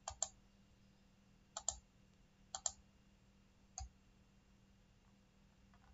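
Computer mouse button clicking: three quick pairs of clicks, then a single click.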